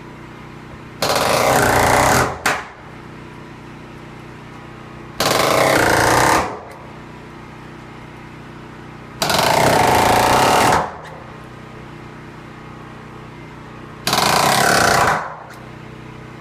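Ridgid R350PNA pneumatic palm nailer driving galvanized spiral spikes into wood studs: four rapid bursts of hammering, each about a second and a half long, a few seconds apart.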